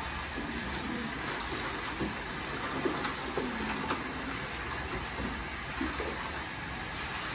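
Water running from a garden hose into a plastic tray, a steady splashing hiss.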